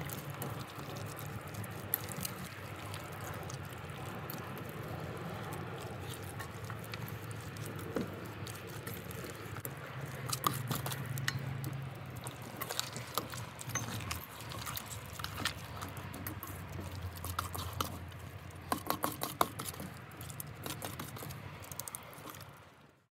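Hands squishing and kneading a wet marinade into raw whole chickens in a metal bowl: soft squelching with scattered small clicks and knocks.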